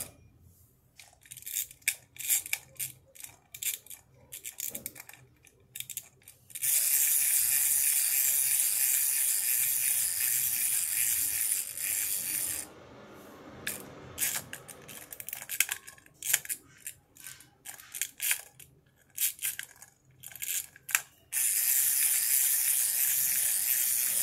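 A crawling baby doll toy's mechanism clicking irregularly, with two stretches of steady high whirring: one starting about a quarter of the way in and lasting about six seconds, the other starting near the end.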